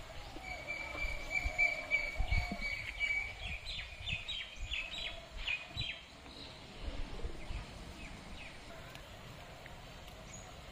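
A bird calling: one long steady whistled note, then a quick run of short chirps that die away about six seconds in. A couple of dull low thumps sound about two seconds in.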